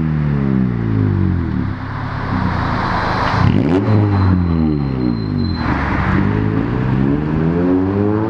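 Cars accelerating past one after another, their engine notes rising and then dropping in pitch as each goes by, with a louder rush from two of the passes near the middle.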